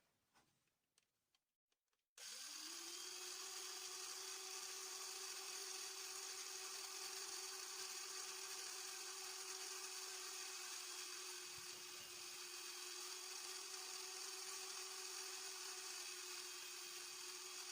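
Old electric drill mounted on a lathe's tool post switched on about two seconds in, spinning up and then running steadily with an even whine.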